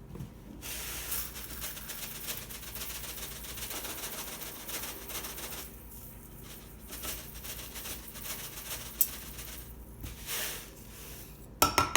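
Coarse pickling salt being scooped and poured into a jar, a dense granular rattle and hiss in several spells. A few sharp clinks near the end.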